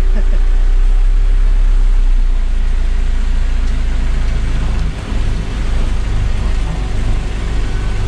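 A car driving, with a steady low rumble of engine and road noise heard from inside the cabin.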